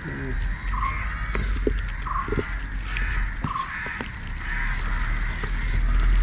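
Crows cawing several times, with a steady low rumble and light crackles of soil and roots being handled.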